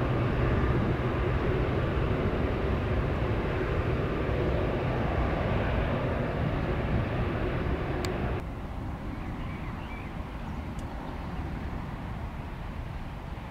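Airbus A380's four jet engines running, a loud steady rush with droning tones. About eight seconds in, after a brief click, the sound drops abruptly to a much quieter hiss.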